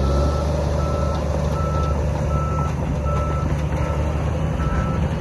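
Shantui DH17C3 crawler bulldozer's diesel engine running steadily under a reversing alarm that beeps evenly, a little more than once a second: the dozer is backing up.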